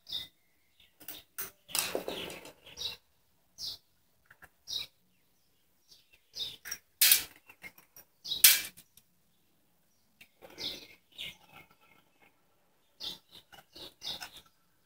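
Irregular clinks, scrapes and knocks of hands and metal parts being worked on a small petrol engine, with the two loudest about seven and eight and a half seconds in.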